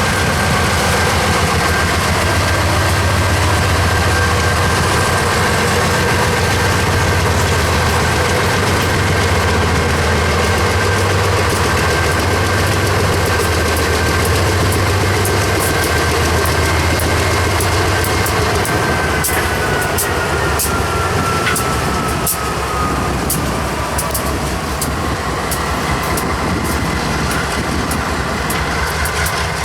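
GE diesel locomotives of a freight train running past, loud and low. About two-thirds of the way through, a high whine falls in pitch as the locomotives go by, followed by a run of sharp clicks from wheels crossing rail joints.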